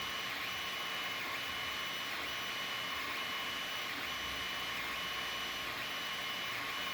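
Creality Ender-3 3D printer running a print: its stepper motors give a steady whine at a few fixed high pitches that breaks off briefly about once a second as the moves change, over a steady hiss.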